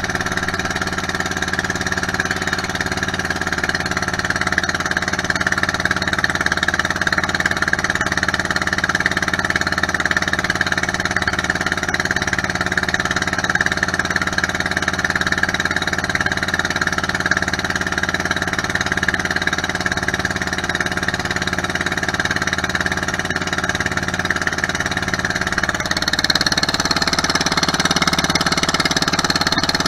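Outrigger boat's engine running steadily while under way. About 26 seconds in, its note shifts and it gets a little louder.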